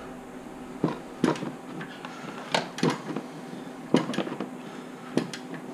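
Tool clicks and knocks, about six of them, irregularly spaced, as a wrench turns the Honda B16A2 engine over by hand at the crankshaft bolt, turning the new timing belt and cam pulleys.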